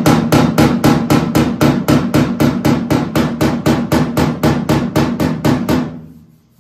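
Body hammer tapping quickly and lightly on the steel quarter panel of a 1968 Pontiac Firebird, about four or five even strikes a second, with no dolly behind the panel. It is knocking high spots along the welded seam down below grade ahead of body filler. The tapping stops about six seconds in.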